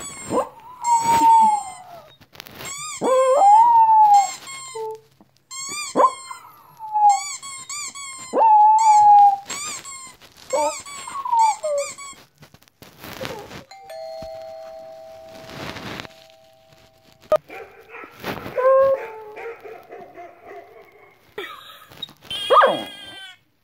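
Dog whining and yelping in a series of high, falling cries, with a two-note doorbell-like chime about fourteen seconds in.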